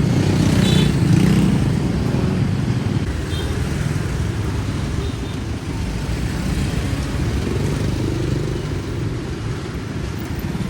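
Street traffic: a steady low rumble of motor vehicles passing, slightly louder in the first two seconds.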